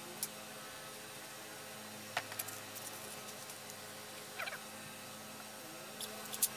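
Light clinks and taps of steel screwdriver bits being picked through in a plastic tray, scattered irregularly over a faint steady hum. A louder, sharp click comes near the end as the cordless drill is handled.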